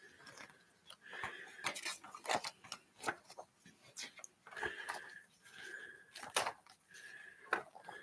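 Pages of a spiral-bound book being turned one after another: repeated paper swishes and rustles, with sharp clicks as the pages flip over the wire coil binding.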